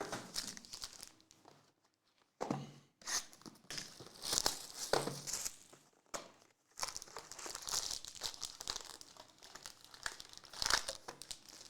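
Plastic wrapping on trading-card boxes and packs being torn open and crinkled, in irregular bursts of rustling with short pauses between them.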